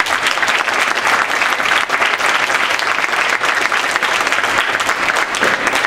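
Audience applauding steadily, many hands clapping at the end of a speech.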